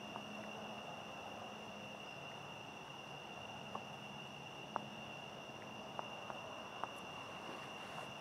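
Faint, steady chorus of crickets trilling on one high note, with a few faint ticks.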